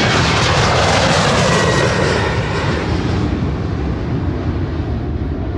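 Jet airliner taking off and climbing away: a loud jet engine roar with a whine that falls in pitch as it passes. It is loudest in the first three seconds, then slowly fades.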